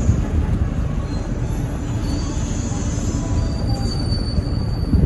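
Hyundai New Super Aero City city bus heard from inside the cabin: a steady low engine and drivetrain rumble with road noise as the bus moves in traffic, and a faint high whine near the end. The 2014 bus carries an engine note that the uploader says sounds like a Euro 5 engine.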